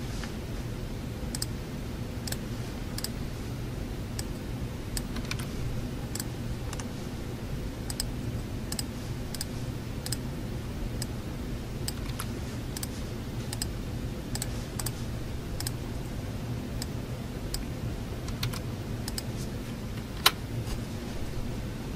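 Library room tone: a steady low building hum with sparse, irregular clicks of typing on a computer keyboard. One sharper click stands out about 20 seconds in.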